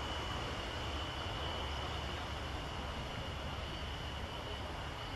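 Airbus A321-200 jet airliner's engines running steadily as it rolls along the runway: a low rumble with a thin, steady high whine.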